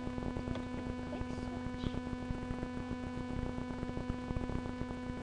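Steady electrical hum with a dense crackle running under it: the noise floor of a built-in webcam microphone.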